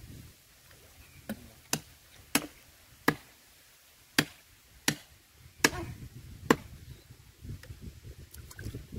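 A blade chopping into wood: about eight sharp, separate strikes at uneven intervals.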